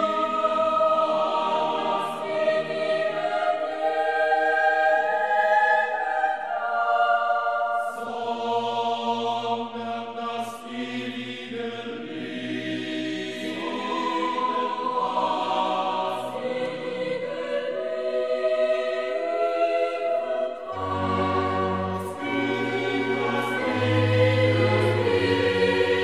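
Background music: a choir singing slow, held chords that change every couple of seconds. Deep low notes come in strongly about twenty-one seconds in.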